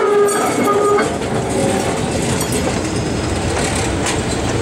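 PCC streetcar rolling past close by on a curve. In the first second a pitched note sounds in several short pieces, then there is a steady rumble of wheels on rail and running gear.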